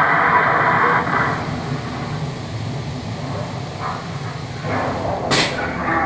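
Steady rumbling ambience of an animatronic dinosaur dark ride, with a louder soundtrack layer that drops away about a second in. A brief sharp hiss of air sounds about five seconds in.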